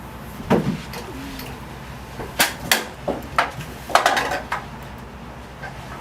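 A thump, then a run of sharp knocks and clatters of hard objects being handled, in a small room.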